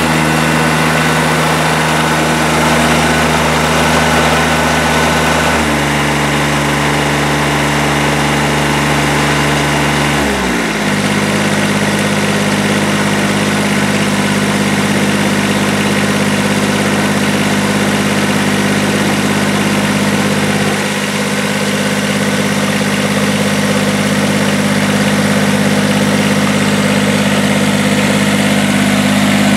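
Kubota TG1860 lawn tractor's 18-horsepower three-cylinder diesel engine running. Its speed steps up about six seconds in and rises again around ten seconds in, then holds steady at the higher speed.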